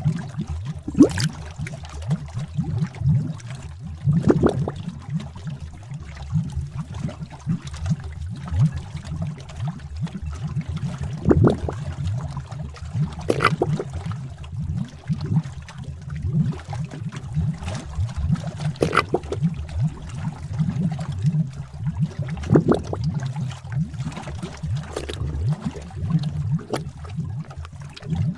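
Cauldron bubbling sound effect: thick liquid bubbling in a steady, dense low burble, with a louder bubble pop every few seconds.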